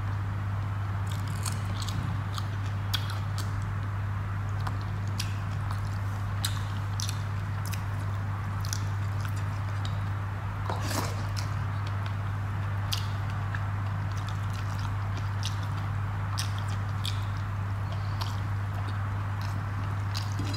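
A person chewing a mouthful of rice and fish curry eaten by hand, with many short wet mouth clicks and smacks. A steady low hum runs underneath.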